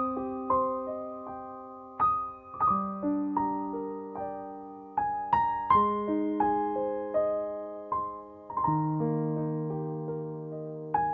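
Slow, gentle solo piano music: single notes and soft chords struck one after another, each ringing and fading before the next.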